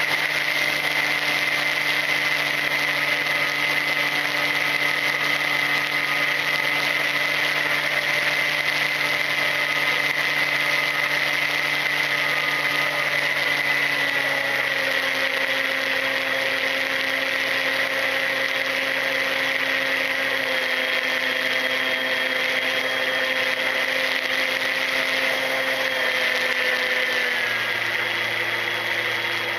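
Ranger EX FPV plane's electric motor and propeller running with a steady whine in flight, heard from the onboard camera over a hiss of rushing air. The pitch steps down twice, about halfway through and again near the end, as the motor slows.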